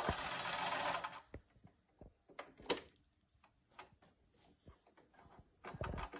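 Brother sewing machine stitching, stopping about a second in. Then come scattered light clicks and knocks, and a short rustle near the end as the fabric is handled.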